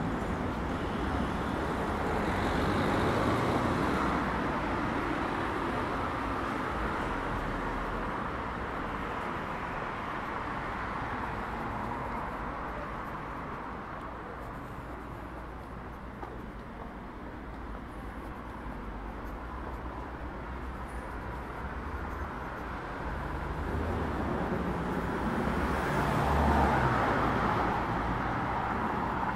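Road traffic on a multi-lane city street: a steady hum of cars, swelling louder as vehicles pass near the start and again near the end.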